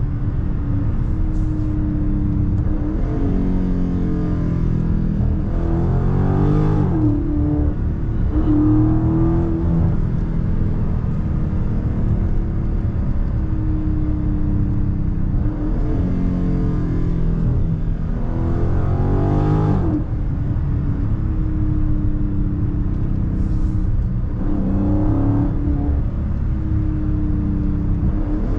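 Dodge Charger Scat Pack's 392 (6.4-litre) Hemi V8 with a mid-muffler delete, heard from inside the cabin while driving on the highway. The engine drones steadily, and several times its pitch climbs under acceleration and then drops as the gearbox shifts up.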